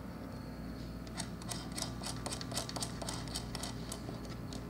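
Faint, irregular small metallic ticks and clicks of a hex nut being turned by hand onto the threaded stud of an automotive circuit breaker, over a washer and ring terminal.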